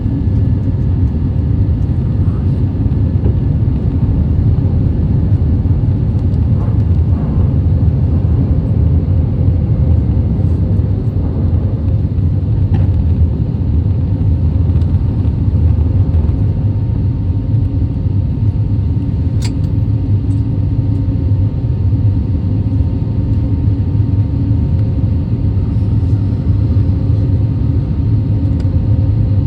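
Steady low rumble of an Airbus A320neo's engines and airflow, heard from inside the passenger cabin, with one brief click about two-thirds of the way through.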